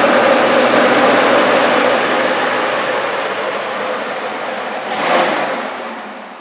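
Restore 6000 hydroxyl generator's fan running on high: a loud, steady rush of air with a hum, fading gradually over the last few seconds, with a brief swell about five seconds in.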